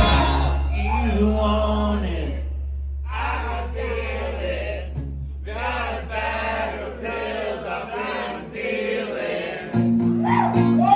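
A live band drops out, leaving a low bass note that rings and slowly fades under unaccompanied singing voices. Near the end the acoustic guitar comes back in and the level jumps.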